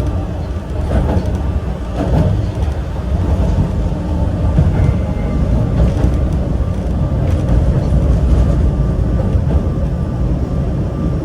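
Yokkaichi Asunarou Railway 260 series narrow-gauge electric train running and pulling into a station, heard from inside the front car: a steady low rumble of wheels on rail and the nose-suspended traction motors.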